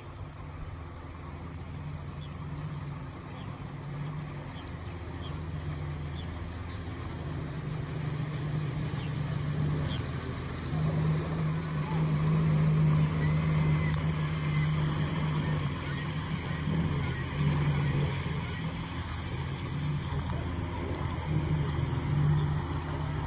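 Tugboat's diesel engines running with a low, steady drone that grows louder as the tug comes closer.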